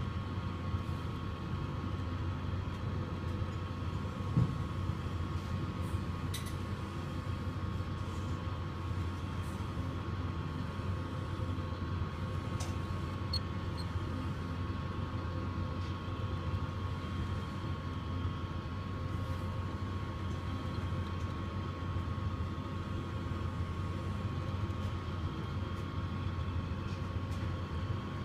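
Model railroad grain hopper cars rolling steadily over a plate-girder bridge: a continuous low rumble of wheels on the track with a steady high whine above it and a few faint clicks.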